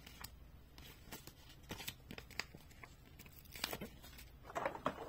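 Paper sticker sheet handled as a small sticker is peeled from its backing: faint rustling and crinkling with scattered light clicks, a little busier near the end.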